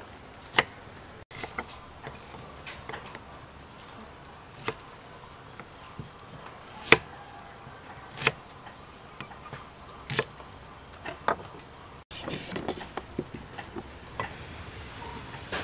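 Cleaver knocking now and then on a wooden chopping block, about half a dozen single sharp strikes a second or two apart as shallots are cut into pieces, over a faint steady hiss.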